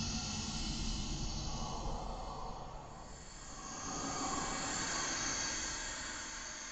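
Dark ambient soundtrack music: a wind-like whooshing hiss over a low rumble, fading down about three seconds in and swelling back up.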